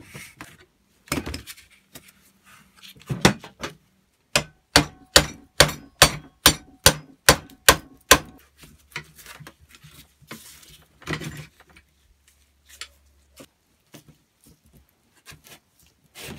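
A run of about ten sharp metal hammer blows, two or three a second, on the old foot pump's pedal pivot, with a punch driving out a pivot pin. Scattered knocks and clatter of steel parts and tools on the wooden bench come before and after.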